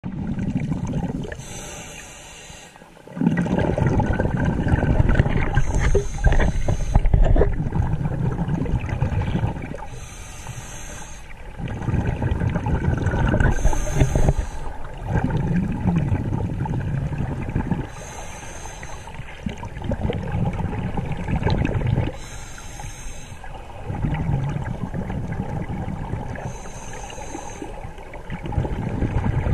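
A scuba diver breathing through a regulator underwater. Each cycle is a short hiss on the inhale followed by a longer, louder rumble of exhaled bubbles, repeating every four seconds or so.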